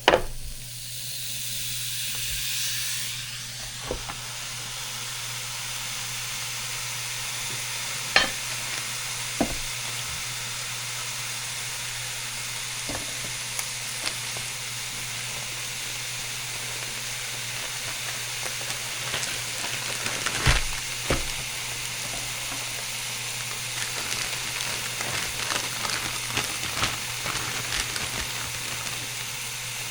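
Chicken-and-lamb burger patty sizzling on a George Foreman electric contact grill, a steady frying hiss. A sharp clack comes at the very start, and a few brief knocks follow later on.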